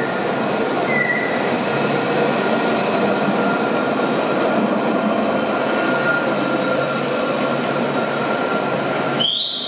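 A rail vehicle running with a steady rumble and high wheel squeals: a short squeal about a second in and a rising squeal near the end.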